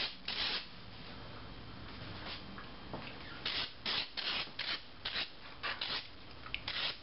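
Trigger spray bottle of water spritzing mist onto rising sourdough loaves, a run of short hissing squirts: a couple at the start, then a quick series of about eight, two or three a second, in the second half.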